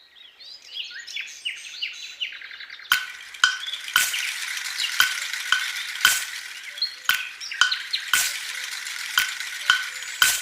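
A flock of small parrots chirping. At first there are a few separate sliding chirps. From about three seconds in, many birds chatter densely, cut by sharp calls roughly once or twice a second.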